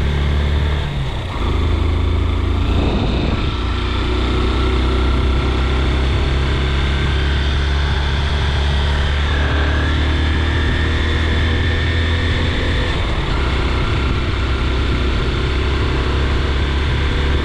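Vehicle engine and road noise while driving, a steady low rumble that dips briefly a little over a second in.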